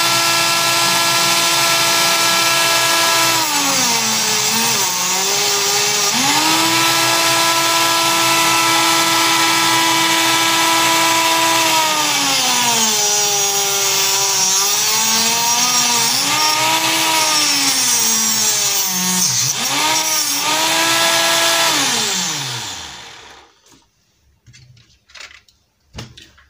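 Homemade mini table saw, eight small 6-volt DC motors in series driving a homemade blade through gears, running with a steady high whine. Its pitch sags several times as wooden strips are pushed into the blade and recovers in between, and near the end it winds down and stops.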